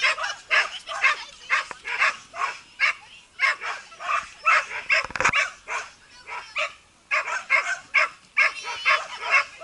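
Dog barking over and over, about two barks a second, with a brief low thump about five seconds in.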